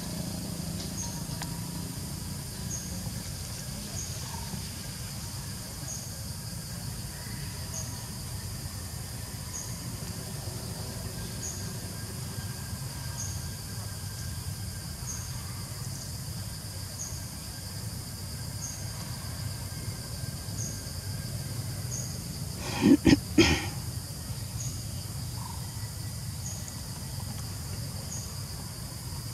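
Forest ambience: an insect chirps high and regularly, about once every one and a half to two seconds, over a low steady rumble. About two-thirds of the way through, three short loud sounds come in quick succession.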